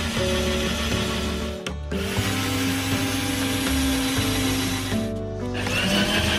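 Cordless drill whirring as it drives screws into wooden strips on a van's metal ceiling, its motor speeding up and slowing in short runs, one starting near the end. Background music plays along with it.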